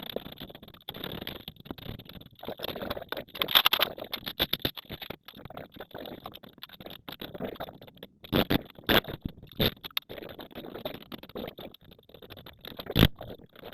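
Irregular rustling and scraping, with a few sharp knocks, the last and loudest near the end.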